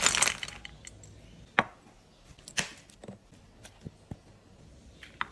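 Crispy air-fried wontons tumbling onto a plate with a dry, clattering rattle that dies away in the first moment. A few scattered light clicks and taps follow.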